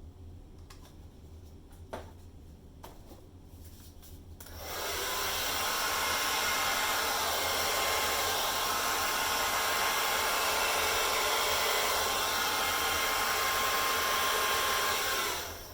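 Handheld hair dryer switched on about four seconds in, running steadily for about ten seconds, then switched off near the end. It is blowing wet acrylic paint across a canvas in a Dutch pour.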